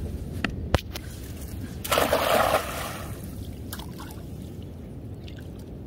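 A hand-thrown cast net lands on the water with one brief splash about two seconds in. Two sharp clicks come just before the throw.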